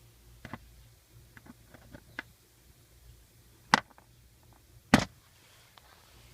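Several scattered sharp clicks and knocks over a faint steady low hum, the two loudest knocks coming about four and five seconds in.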